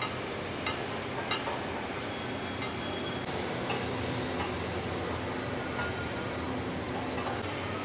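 A workshop machine running steadily with a low hum, with scattered light ticks, a few of them in the first second and a half.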